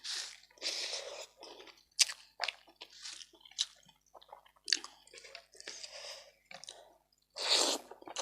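Close-miked chewing of food: a run of short, wet mouth sounds and sharp clicks, with one longer, louder noisy stretch near the end.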